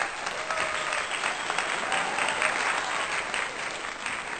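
Audience applauding, a dense spread of many hand claps.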